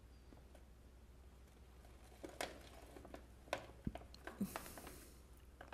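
Quiet low room hum, then from about two seconds in a handful of scattered soft crackles and taps from a plastic snack bag shifting in a hand, with one brief rustle near the middle.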